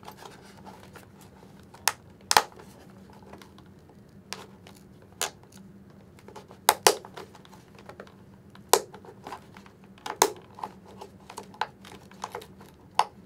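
Shark SKWAL 2 helmet's plastic liner tabs and top pad being pried loose from the shell: irregular sharp clicks and snaps, with fabric and foam rustling between them.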